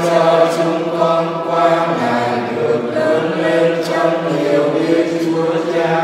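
Choir singing a slow sacred chant with long held notes, several voices together over a steady low tone.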